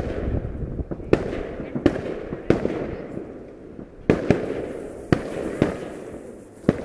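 Fireworks going off in a rapid run of about nine sharp bangs at uneven intervals, from under half a second to well over a second apart. A crackling rumble fills the gaps between the bangs.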